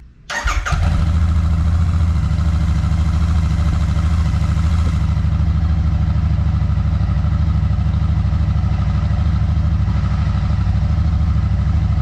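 Royal Enfield Super Meteor 650's 648 cc parallel-twin engine on its stock exhaust, catching about half a second in and then idling steadily.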